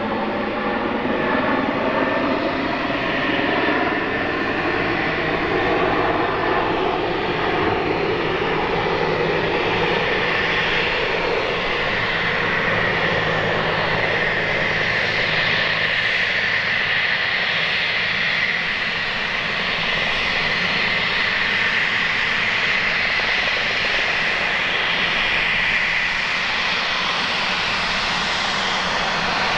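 Cessna 560 Citation Encore's twin Pratt & Whitney Canada PW535 turbofans whining at taxi power as the jet rolls along the taxiway. Over the first several seconds several tones drift slowly upward in pitch, then a steady high whine takes over.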